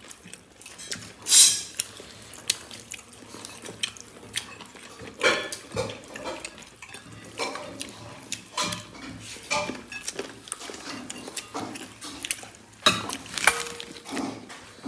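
Plates and cutlery clinking at a meal: scattered short clicks and scrapes as rice and curry are eaten by hand from a ceramic plate, with the loudest clink about a second and a half in.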